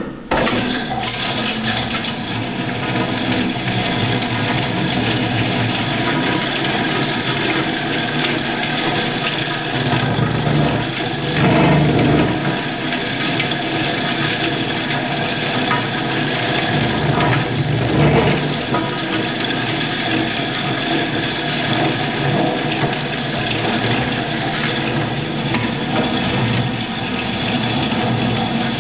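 Mainca CM-41 bowl cutter running, its rotating bowl and knives chopping raw meat: a steady, dense mechanical noise that starts abruptly, with louder swells about 11 and 18 seconds in.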